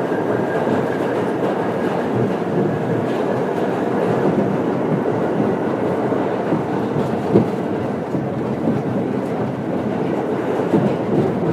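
Subway train running along the track: a steady rumble with wheels clicking over the rail joints and one sharper knock about seven seconds in.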